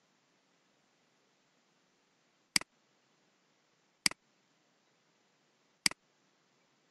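Three computer mouse-button clicks, about a second and a half apart, each a quick press and release.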